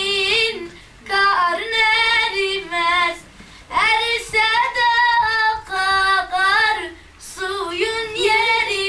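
A boy singing solo without accompaniment, in high phrases of one to two seconds with short breaks between them.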